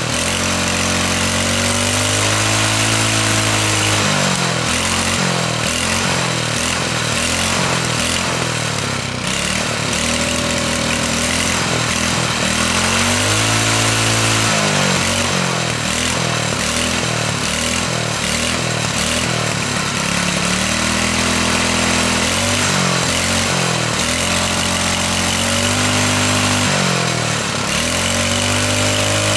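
Small 79cc single-cylinder four-stroke mini bike engine running, its speed rising and falling several times as the carburetor is worked by hand. The owner finds it runs best with the choke closed and takes it to be starving for fuel, a carburetor fault.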